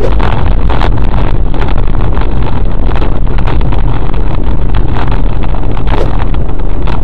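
Car's engine and road rumble as picked up by a dashboard camera inside the cabin: a loud, steady low drone with frequent crackles and rattles.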